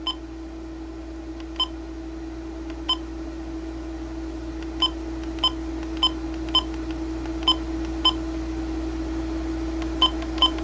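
Midland WR-400 weather radio's keypad beeping as its buttons are pressed through the setup menu: about eleven short, high beeps at irregular intervals. A steady low hum runs underneath.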